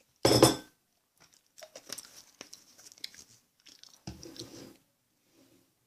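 Bouncy play gel being poured and squeezed out of its tub into a plate: a loud wet squelch just after the start, then crackly squishing and another squelch about four seconds in.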